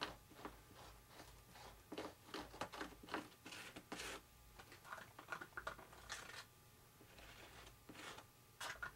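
Faint, irregular scraping and rasping strokes, several a second with short pauses, of a balsa-wood scraper spreading epoxy over fiber tape on a foam wing.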